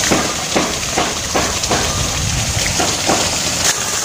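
Water jetting from a hose onto tall elephant grass: a steady spraying hiss with irregular spatters as the stream strikes the leaves.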